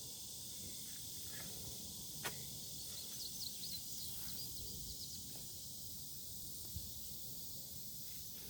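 Quiet outdoor garden ambience: a steady high hiss with a quick run of faint bird chirps near the middle, and a single sharp tick about two seconds in.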